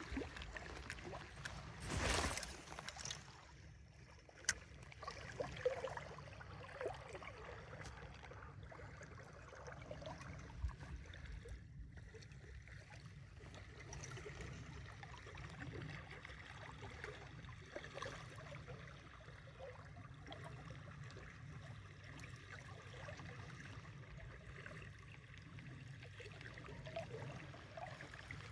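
Faint water lapping and trickling at the edge of a lake, with a few small knocks and a short rush of noise about two seconds in.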